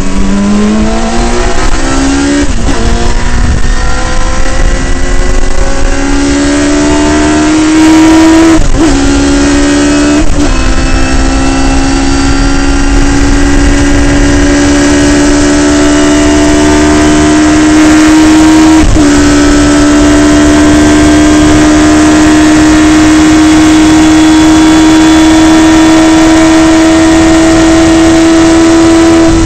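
Radical SR3 race car's motorcycle-derived four-cylinder engine at full throttle, heard onboard: the note climbs and breaks briefly for quick upshifts four times, then is held flat out, rising slowly, for the last ten seconds.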